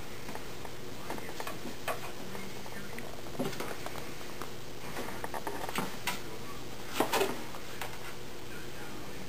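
Kittens moving about and playing, making scattered light taps and clicks, with a short cluster of louder taps about seven seconds in, over a steady low hum.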